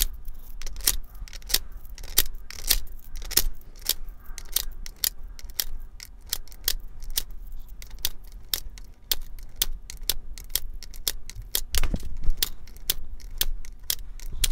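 Coins dropped one after another through the slot of a digital coin-counter jar bank, each landing with a short metallic clink. The clinks come at roughly three a second, sped up.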